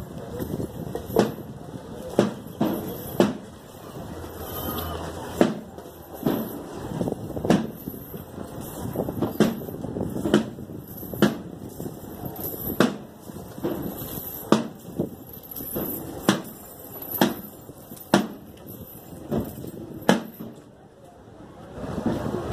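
Slow, steady knocks, about one a second, keeping time for a slow street procession, over a low murmur of the crowd. The knocking stops shortly before the end.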